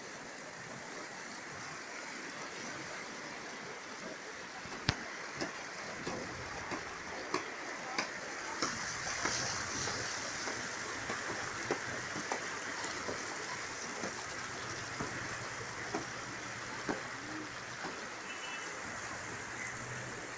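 River water rushing and splashing over rocks and through channels beside a stone footbridge: a steady, even rush. Occasional sharp ticks sound on top of it.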